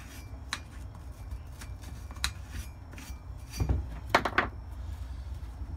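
A brake caliper being handled and worked on a workbench: scattered metallic clicks and knocks, with a quick cluster of sharper clicks about four seconds in.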